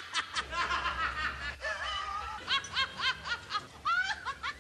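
People laughing in runs of short, repeated bursts, a man and then a woman, over background music.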